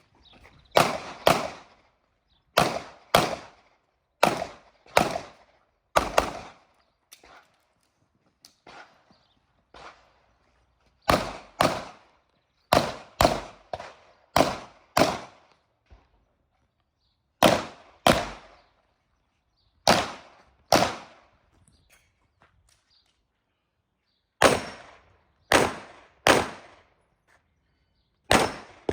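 Pistol shots fired in a series, often as quick pairs about half a second apart, each with a short ringing echo, with fainter shots in the gaps between.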